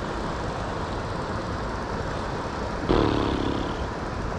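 Steady rushing of a fast-flowing river. About three seconds in comes one short, louder pitched sound.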